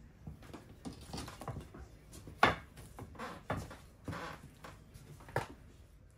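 Handling noise as a heavy cement sculpture is set down onto a wooden base frame with wire mesh: a string of knocks and scrapes, the loudest about two and a half seconds in and another near the end.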